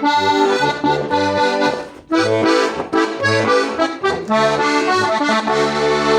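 Oberhorner Steirische Harmonika, a Styrian diatonic button accordion in A-D-G-C tuning, playing a tune: melody and chords over a pulsing bass. There is a brief break in the playing about two seconds in.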